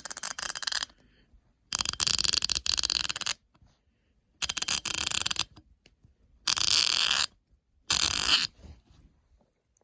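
GEARWRENCH 120XP fine-tooth ratchet being swung back and forth, giving rapid, finely spaced clicking in five separate runs of roughly half a second to a second and a half each, with short pauses between.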